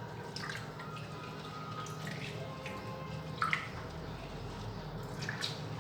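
Tap water running and splashing into a pot of rice as it is rinsed, with a sharper splash about three and a half seconds in.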